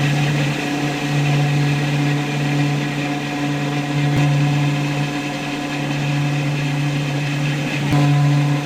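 An electric power-tool motor running steadily at a constant speed, a continuous hum with a fixed pitch that shifts slightly near the end.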